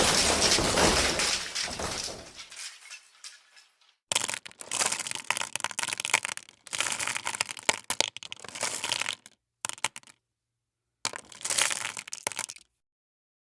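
Animation sound effects of crashing and breaking: a loud crash fades away over the first two seconds or so. Then come four bursts of crunching, crackling noise, the last stopping shortly before the end.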